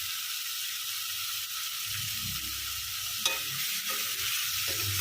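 Marinated chicken frying and sizzling in a pot with onions and herbs while it is stirred, with a steady hiss and low scraping. There is one sharp tap about three seconds in.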